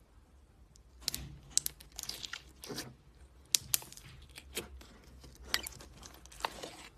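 Slime being squeezed and stretched by hand, giving crackly pops, sharp clicks and crunching that start about a second in.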